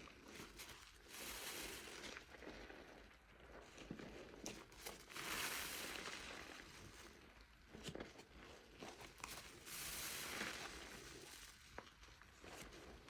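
Wet soap foam being squeezed and worked by hand, a crackling, squishing hiss that swells in several surges with small pops and clicks between.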